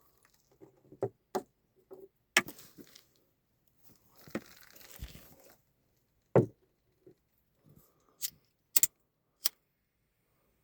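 Firecrackers going off one at a time: about eight sharp, irregular pops, the loudest about two and a half and six and a half seconds in, with a stretch of hiss around the middle.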